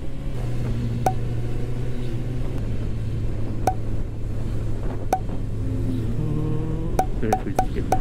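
Suzuki GSX-S1000F's inline-four engine running steadily while the motorcycle cruises. Sharp clicks with a short ring cut through now and then, three spaced a few seconds apart and then four in quick succession near the end.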